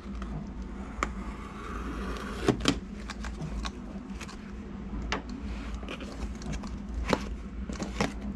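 Cardboard box being opened and handled, its flaps sliding and rustling, with scattered sharp clicks and taps and two louder knocks about two and a half seconds in.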